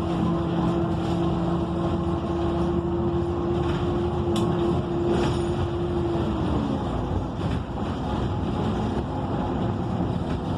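ENC EZ Rider II transit bus under way, its Cummins Westport ISL G natural-gas engine and Allison B300R transmission running with road noise. A steady whine drops in pitch about six and a half seconds in.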